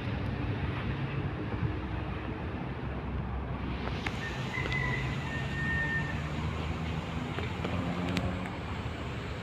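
Steady low rumble of road traffic with engine hum. A thin, high tone sounds briefly about halfway through.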